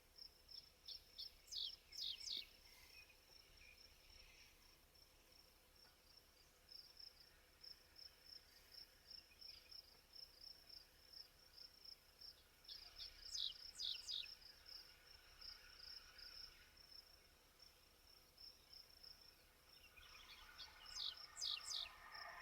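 Faint outdoor insect chirping, a high, steady, pulsing trill, with a bird's short song of quick falling notes three times, roughly every ten seconds.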